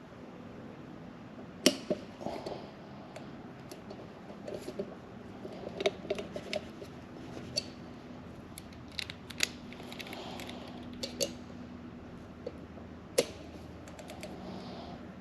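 Cheap Pittsburgh click-type torque wrench on a 6 mm Allen bit tightening motorcycle brake rotor bolts: irregular sharp clicks and small metal taps, some in quick little clusters, as the bolts are brought up to torque.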